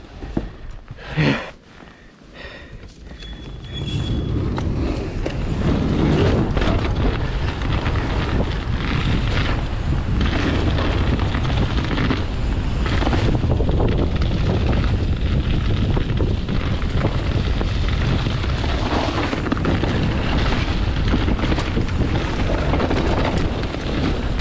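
Mountain bike descending a dirt trail, heard from a chest-mounted action camera: steady rumble of the tyres and rattling of the bike, with wind buffeting the microphone. It is quieter for the first few seconds, with a few knocks and a brief high tone, then swells into constant loud riding noise.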